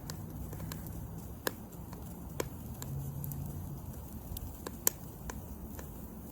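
Drip coffee maker running with its thermal cutout and fuse bypassed, giving scattered sharp pops and crackles over a low hum, the loudest pop about five seconds in. The sound of the plastic around its unprotected heating element overheating.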